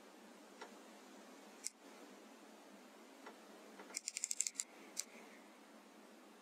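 Faint hiss from a night-vision riflescope's built-in microphone, broken by a few single clicks and, about four seconds in, a quick run of about eight clicks as the scope's digital zoom is stepped up.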